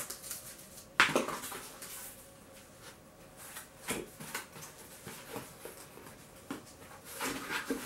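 Cardboard book mailer being handled and opened: a sharp crackle about a second in, then scattered soft scrapes and taps as the book is slid out of the cardboard.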